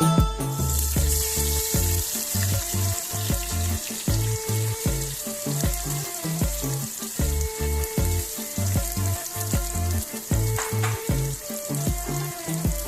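Food frying and sizzling in a hot pan, a steady high hiss that starts just after the opening, over background music with a repeating bass line.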